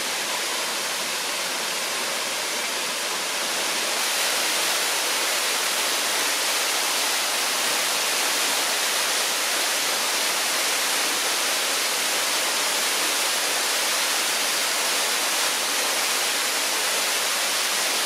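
Waterfall plunging through a hole in a rock arch into a pool below, a steady rush of falling water after rain, growing a little louder about four seconds in.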